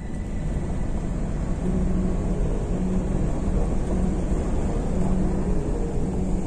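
A car driving along a dirt and gravel road, heard from inside the cabin: steady tyre and road noise over a low engine drone, with a faint hum that comes and goes.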